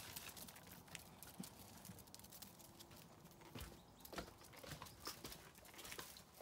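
Faint footsteps and light taps and scuffs of walking on concrete, with pets' paws pattering alongside.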